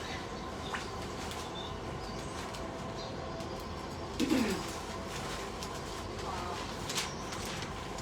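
A pet parrot gives one short, low call that falls in pitch, about four seconds in, over a steady room hum with a few faint clicks.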